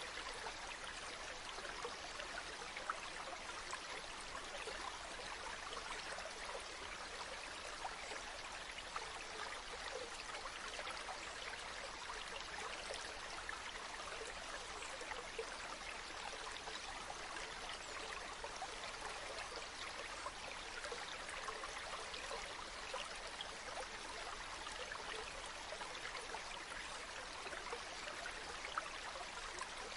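Mountain river flowing steadily over stones, a constant bubbling and splashing rush with small splashes flickering through it.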